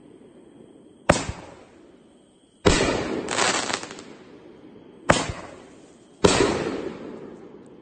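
Consumer fireworks cake firing its shots one after another: four sharp bangs in the air, each fading away over a second or so, the second one a longer double burst.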